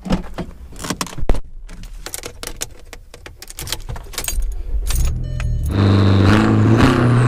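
Clicks and clunks of a car door handle, door and keys, then about five seconds in a car's engine and exhaust run with a steady low drone that steps up in pitch a few times as it drives off.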